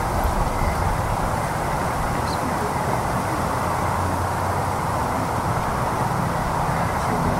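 Steady outdoor background noise: a low rumble under an even hiss, unchanging throughout, with no voices.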